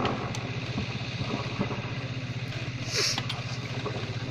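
Steady low mechanical hum with a fine rapid pulse, and a short hiss about three seconds in.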